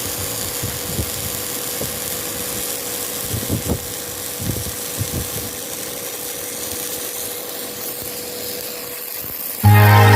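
Steady machine noise from a robotic welding machine at work, with a faint steady hum and a few soft low knocks. Loud music cuts in near the end.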